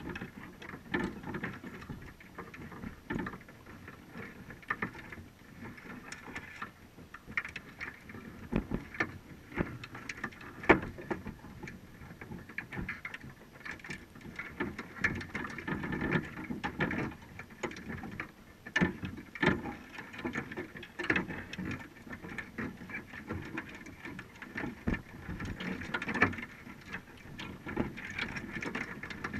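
Underwater sound inside a wire crab trap, heard through a camera's waterproof housing: a muffled wash of water noise with irregular clicks and knocks as crabs clamber over the trap mesh and the bait cage.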